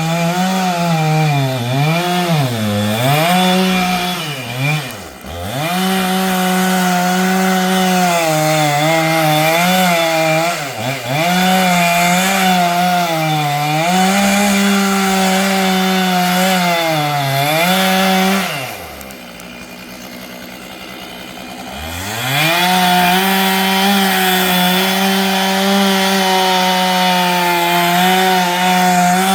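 Two-stroke chainsaw running at full throttle, its engine note sagging and recovering again and again as the chain bogs under load in the wood. About two-thirds of the way through the throttle is released to a quieter idle for about three seconds, then it revs back up to full speed.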